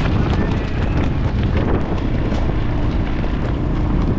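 Strong wind buffeting the microphone, a loud steady rumble, with a faint steady hum joining in about halfway through.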